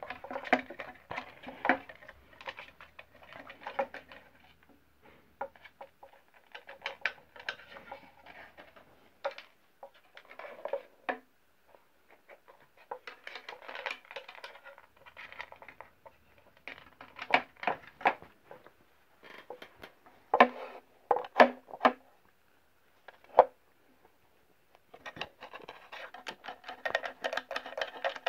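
Cats pawing and scratching at a wooden puzzle box, with the toy balls inside knocking against its walls: irregular clusters of taps, clicks and scrapes with short pauses between. Near the end a denser, more even pattern starts.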